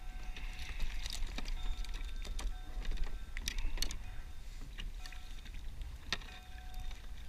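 Wind rumbling steadily on an action-camera microphone on a fishing kayak, with scattered sharp clicks and knocks from hands working a hook and tackle while unhooking a blackfish.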